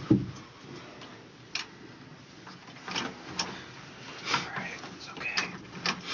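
Scattered rustles and light knocks of people shifting and settling close together on a couch, clothing brushing, with a short sharp sound about once a second.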